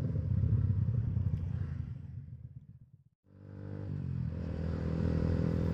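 Motorcycle engine running steadily. The sound fades out to silence about three seconds in, then fades back in.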